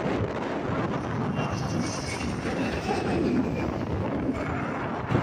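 Twin-engine propeller floatplane flying low overhead, its engines droning steadily with a faint high whine.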